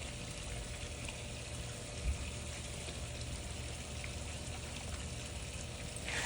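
Battery-powered handheld pool vacuum running underwater, a steady rush of water being drawn through it with a faint steady motor tone. A short low bump about two seconds in.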